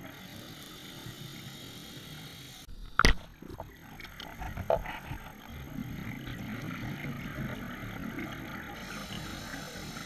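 Underwater sound of scuba breathing through a regulator, with exhaled bubbles gurgling, heard through a camera's waterproof housing. A sharp knock about three seconds in, with a few smaller clicks after it.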